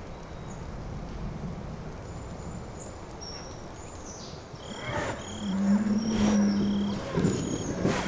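A Spanish fighting bull lowing: one long, low steady call starting about five seconds in, with a few sharp breaths or snorts around it. Small birds chirp faintly and a high chirp repeats about twice a second in the background.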